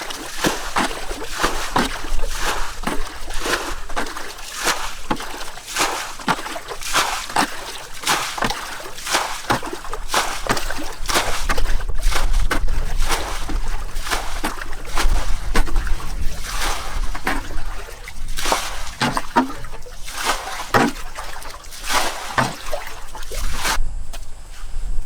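Water splashing and sloshing in irregular strokes, many a second, as something moves through shallow pond water.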